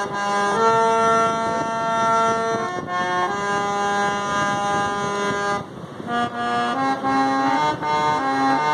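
Harmonium playing a slow national anthem melody: reedy notes held for a second or more each, with a short break just before six seconds in, then quicker note changes.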